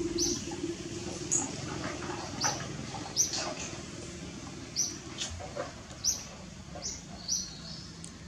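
Short, high-pitched chirps repeating roughly once a second from a small animal, over a low hum that fades out in the first second or two.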